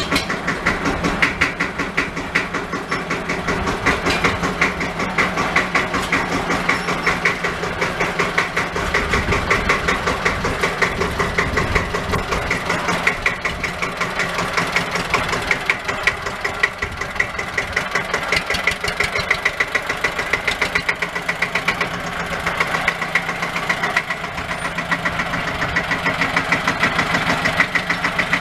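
1964 Deutz D15's single-cylinder air-cooled diesel running with an even, rapid chug while the tractor backs out of the shed and drives off at low speed.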